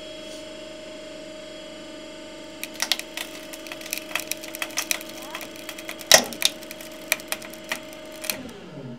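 Hydraulic press running with a steady hum as it presses down on a screwed wooden joint. From about three seconds in, the wood creaks and cracks in quick sharp clicks, the loudest crack a little past six seconds, as the four 50 mm screws start to pull out under a steady load of about 1.5 tons. The hum stops shortly before the end.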